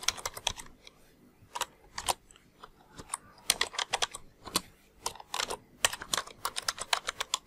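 Computer keyboard typing: single keystroke clicks in uneven clusters with short gaps between them, as a line of code is entered.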